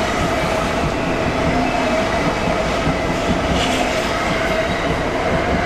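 Train passing at close range: a loud, steady rumble of wheels on rails, with steady high tones riding over it.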